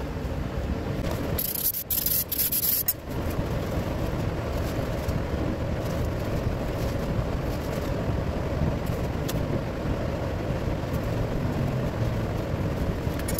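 Shop towel rubbing and wiping over the oily metal balance shaft housing of a Toyota 2AR-FE engine, a steady scrubbing rustle, with a brief sharper hiss from about one and a half to three seconds in.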